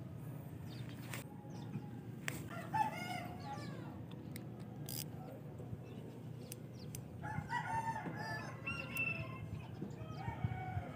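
A rooster crowing, once about two and a half seconds in and again, longer, about seven seconds in, over a steady low background hum.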